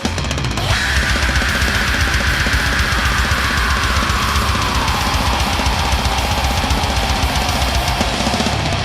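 Heavy metal music with a drum kit and distorted guitar, loud and dense. After a brief break at the very start, a high line comes in and slowly slides down in pitch through the rest of the passage.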